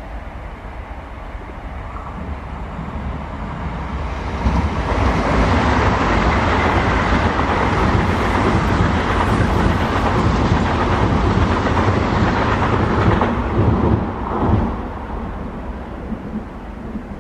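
Two FS Class D445 diesel locomotives coupled together and running light pass close by. The rumble of their diesel engines and wheels builds from about four seconds in, stays loud for about ten seconds, then fades as they draw away.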